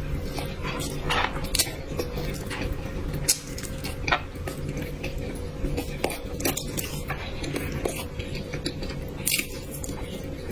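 Eating sounds: a utensil clicking and scraping against a dish at irregular moments, with chewing in between, over a steady faint hum.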